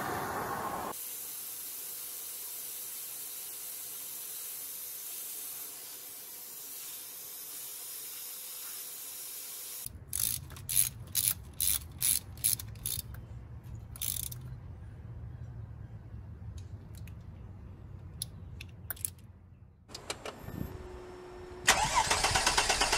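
A steady hiss, then a ratcheting torque wrench tightening the oil cooler bolts on a Mercedes OM642 V6 diesel: about eight sharp ratchet clicks at roughly two a second, followed by a few fainter clicks. A loud steady noise starts near the end.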